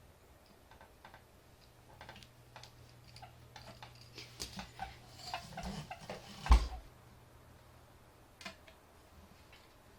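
Small objects being handled: scattered light clicks and taps, busier in the middle, with one heavy thump about six and a half seconds in.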